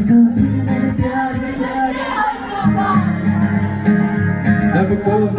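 A man singing a song live while strumming an acoustic guitar.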